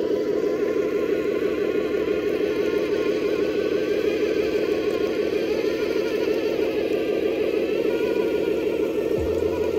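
1/14-scale radio-controlled Scania R620 truck running along with a steady, buzzing drone that does not break.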